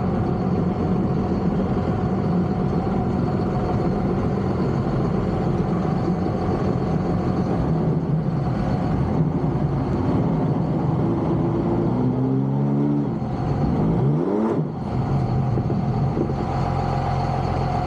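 Jet ski engine running at speed over a steady rush of wind and water. About fourteen seconds in, its pitch climbs steeply, then the level dips briefly before the engine settles back to a steady run.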